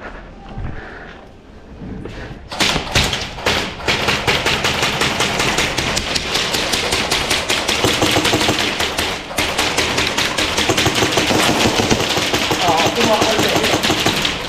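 Airsoft gunfire: a few single shots, then rapid, near-continuous full-auto rattling from about four seconds in, with a short break around nine seconds.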